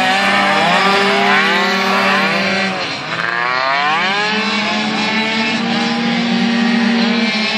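Several racing scooter engines running hard at high revs at once, their pitches falling and rising as the riders lift off for the corner and accelerate out of it, with a brief lull about three seconds in.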